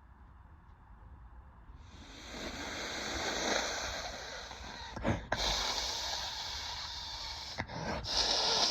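A woman blowing her nose hard: long, noisy blows starting about two seconds in, broken by two short pauses.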